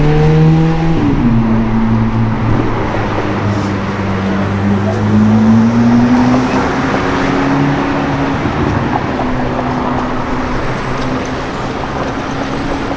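A sports car engine accelerating, its pitch climbing until about a second in, when it drops sharply on an upshift; it then pulls on at a lower, steadier note that rises a little again midway, over street traffic noise.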